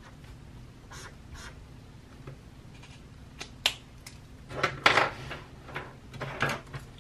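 Paper and marker handling: soft rustles, taps and clicks as a spiral notebook is moved and its page touched, with the loudest rustling about five seconds in and a shorter burst near the end.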